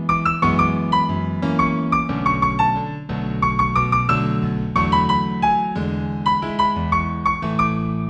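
Instrumental keyboard music with a piano-like sound, in A major at a moderate tempo of about 90 beats a minute: a melody of struck notes over held low chords.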